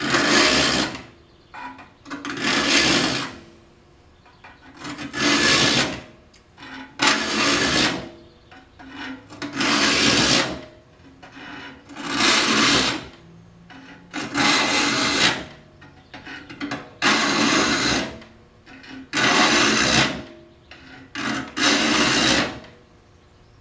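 Saw file rasping across the teeth of a Disston D8 rip saw, about ten forward strokes, each about a second long and roughly two seconds apart. The file is filed straight across each tooth and lifted out on the return instead of dragged back, so only the cutting strokes are heard.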